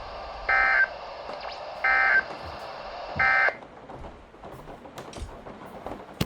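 Emergency Alert System end-of-message code: three short, identical bursts of warbling digital SAME data tones, each about a third of a second, sent at the close of a tornado warning broadcast. They play over broadcast hiss that drops away right after the third burst.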